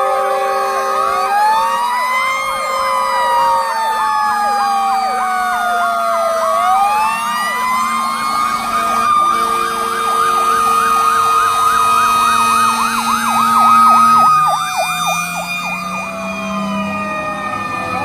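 Several fire trucks sounding at once. A siren winds up about a second in and falls away in long slow wails, rising again about six seconds in; an electronic siren runs a fast yelp; under them, steady chords from air horns (train horns) are held for long stretches.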